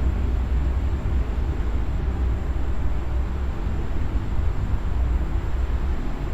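Steady rushing air noise with a fluctuating low rumble from a running fan.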